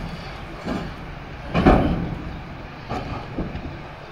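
Diesel engines of heavy earthmoving plant (large excavators and articulated haulers) running steadily, with about four heavy clunks of big rocks knocking together as they are handled, the loudest about a second and a half in.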